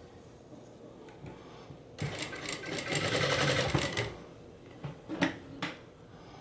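Singer straight-stitch sewing machine running in one run of about two seconds, starting about two seconds in, stitching a shirt sleeve cap into the armhole. A few sharp clicks follow.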